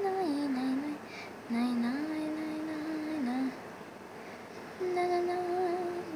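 A high voice singing or humming long held notes in three drawn-out phrases, each holding a pitch and stepping up or down, with short pauses between them.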